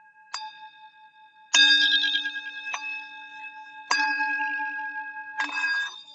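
Metal Bali bowl tuned to D, struck about five times, two of the strikes much harder, each leaving a steady bell-like ring. Near the end the ringing is cut off suddenly.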